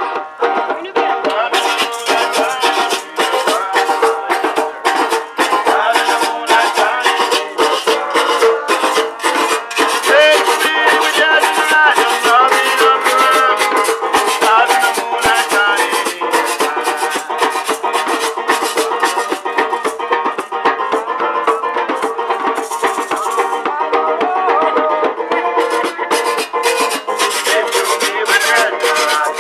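Live acoustic folk band playing: a banjo strumming, a metal grater scraped with a stick and maracas keeping a dense, steady rhythm, a hand drum, and a man singing.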